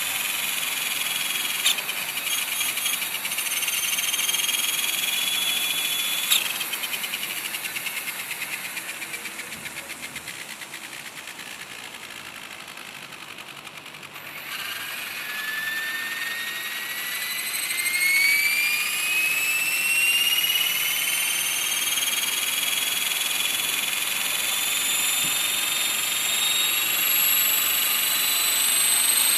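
Align T-Rex 500 electric RC helicopter's motor and rotor head whining. The whine cuts out about six seconds in and the sound fades as the rotor winds down. Then, about halfway through, a new whine starts and rises steadily in pitch as the rotor spools up again.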